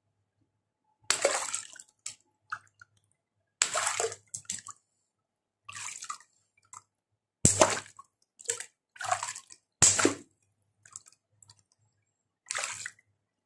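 Latex water balloons being pricked with a pin and squeezed in a tub of water: about seven short bursts of splashing and squirting water, two of them starting with a sharp pop.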